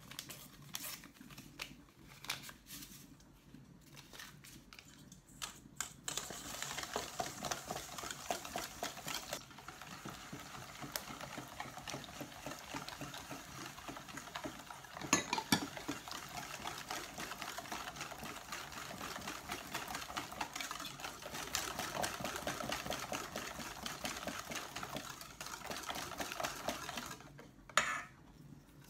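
Wire whisk beating egg, sugar and oil batter in a stainless steel bowl, the wires clattering against the metal in a fast, even rhythm that starts about six seconds in and stops near the end. Before it come a few light taps and clinks. Sharper knocks come about halfway through and near the end.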